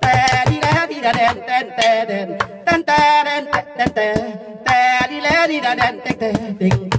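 A man singing into a close microphone over a backing track with a steady drum beat.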